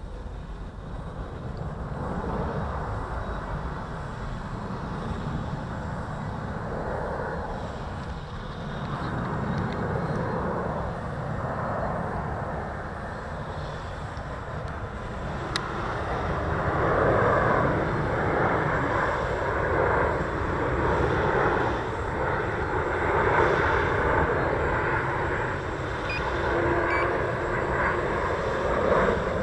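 F450 quadcopter's motors and propellers buzzing in flight, growing louder about halfway through, over a low rumble of wind on the microphone; a single sharp click near the middle.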